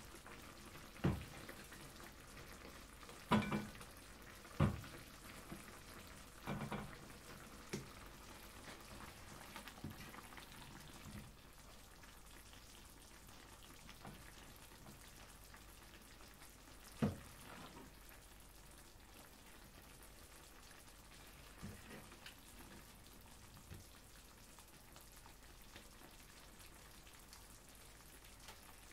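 Creamy sauce sizzling softly in a frying pan, with occasional sharp knocks and clinks of cooking utensils against the pan, pot and bowls: several in the first few seconds and one more about halfway through.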